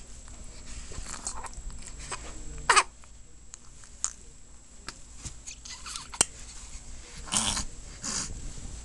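A contented baby cooing and squealing in a few short separate sounds. The loudest is a brief squeal falling in pitch about three seconds in, and a longer, breathier coo comes near the end.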